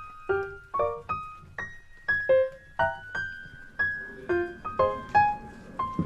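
Background piano music: a light melody of single and chorded notes struck at an easy pace, each note ringing and fading.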